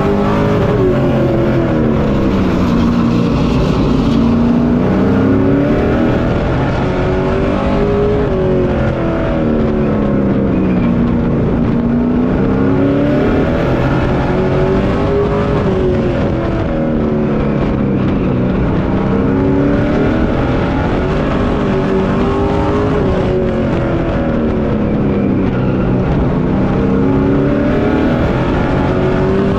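A Pro Truck race truck's engine, heard from inside the cockpit at racing speed. Its pitch drops into each corner and climbs again down each straight, about every seven to eight seconds.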